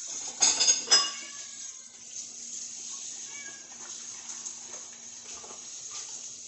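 Tap water running into a kitchen sink as dishes are washed by hand, with two loud clinks of dishware about half a second and a second in.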